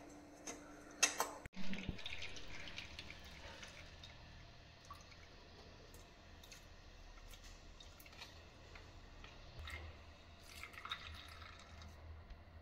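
Freshly ground coconut being pressed with a steel spoon in a small steel strainer: faint dripping of coconut milk into the bowl, with light scraping of spoon on mesh. A couple of sharp knocks about a second in are the loudest sounds.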